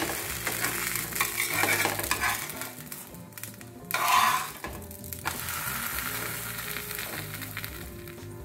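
Thin batter crepe sizzling in oil in a non-stick frying pan, a steady hiss. About four seconds in there is a brief louder flap as it is lifted and turned over by hand.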